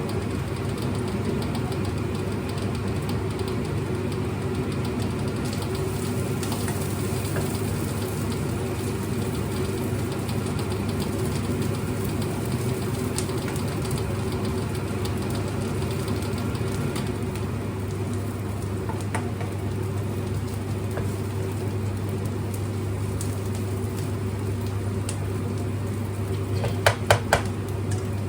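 Steady electric motor hum of a kitchen appliance, even and unchanging, with a quick cluster of four or five sharp clicks about a second before the end.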